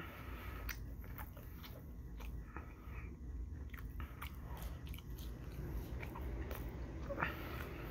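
Close-up mouth sounds of a person chewing french fries: many small clicks from the mouth, over a low steady hum.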